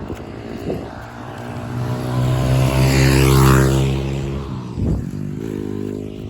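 Motorcycle passing close by, its engine note building to a peak about three seconds in and then fading away.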